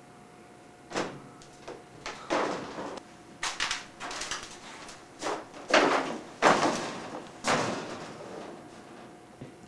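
Scuffing footsteps on a hard floor with rustling clothing, about eight scrapes and clunks, the loudest about six to seven seconds in. Recorded on a camcorder's built-in microphone, with a faint steady hum underneath.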